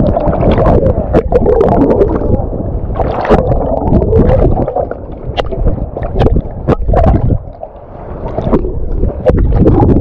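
Sea waves surging and sloshing close to the microphone, with repeated splashes and gurgling water.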